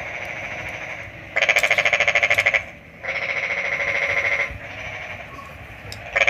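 Rapid pulsing trilling calls from animals, one after another, each lasting one to two seconds; the loudest comes about a second and a half in, and softer trills come before and after it.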